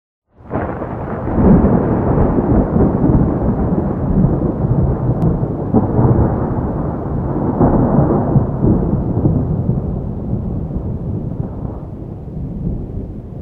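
Rolling thunder: a long rumble that starts abruptly, swells several times and slowly dies away toward the end.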